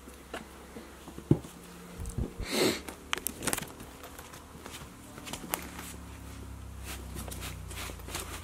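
Border terrier puppy scrabbling into a fabric pop-up pen on wooden floorboards: scattered clicks and rustles of claws and paws on the boards and the pen's fabric, with a sharp knock about a second in and a louder rustle a little after two seconds in.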